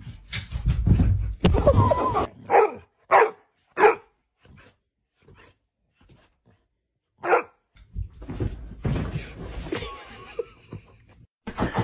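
A dog barking: three short barks about half a second apart a few seconds in, and one more a few seconds later, among stretches of muffled noise.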